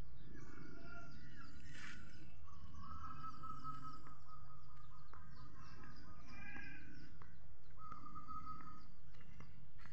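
Birds calling and chirping on and off, with several short whistled and warbling calls, over a steady low rumble of outdoor background noise.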